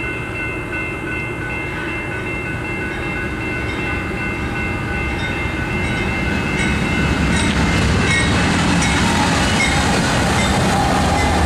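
BNSF freight train approaching and passing, its locomotive engine rumble and wheel noise growing louder as the lead unit goes by near the end. A steady high ringing from the grade-crossing bells sounds over it in the first half, then fades under the train.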